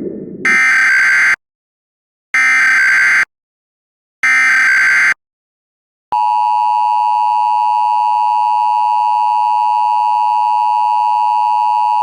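Emergency Alert System tones. Three short bursts of SAME header data tones, each just under a second and about a second apart, open the alert. About six seconds in, the steady two-tone EAS attention signal begins and holds, announcing an emergency message. A brief low noise is heard at the very start.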